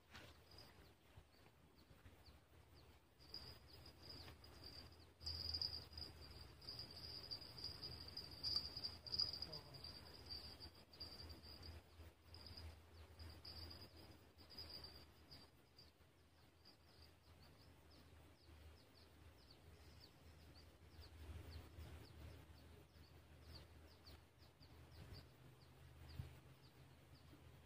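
Faint, high, steady insect trill over a quiet low rumble. It grows louder a few seconds in, then thins to fainter rapid pulses in the second half.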